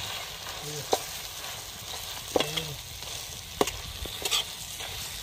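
Torn parotta and chicken fry sizzling as they are stirred and tossed in a large wok. A metal utensil knocks sharply against the pan a few times.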